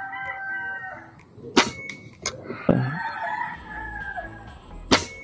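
A rooster crowing twice, with two sharp air rifle shots about three seconds apart, louder than the crowing.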